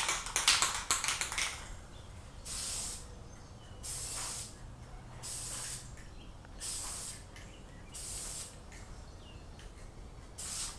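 Aerosol can of Krylon Camouflage olive green spray paint hissing in short bursts as stripes are sprayed on. A longer, louder stretch of spraying in the first second and a half is followed by about five quick sprays, each under a second and spaced roughly a second and a half apart.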